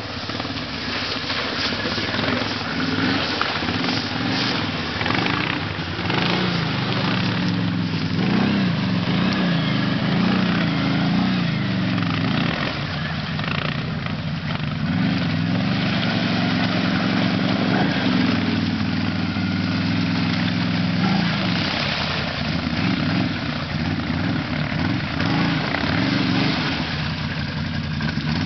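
Can-Am Outlander XMR ATV's V-twin engine revving up and down repeatedly under load as the quad ploughs through deep muddy water, over a steady hiss of churning, splashing water.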